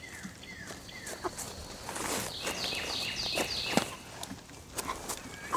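Birds chirping: short falling chirps repeat about twice a second, with a run of four brighter, higher notes near the middle, over scattered footsteps.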